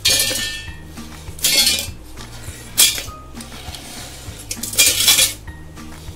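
Shards of hard-set caramel sliding off a wooden chopping board and clattering into a stainless steel mixer-grinder jar, in about four sharp bursts.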